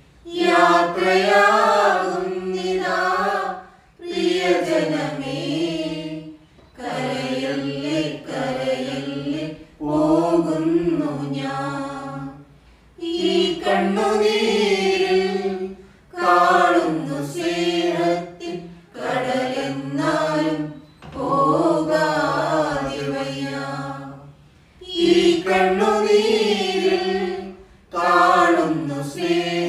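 Small mixed choir of women and men singing a Malayalam hymn unaccompanied, in phrases of two to four seconds separated by brief pauses for breath.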